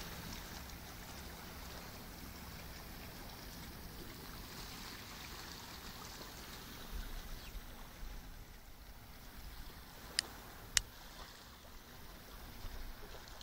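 Calm sea washing gently against shoreline rocks, a faint steady wash. Two sharp clicks come close together about ten seconds in.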